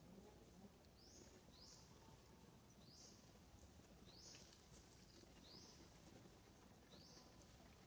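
Near silence, with faint, short, high chirps, each rising quickly in pitch, repeating about once a second.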